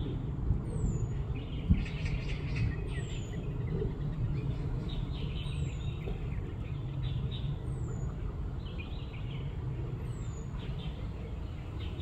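Small birds chirping on and off, with a thin, high falling whistle repeated about every two seconds, over a steady low rumble. Two brief knocks in the first two seconds are the loudest sounds.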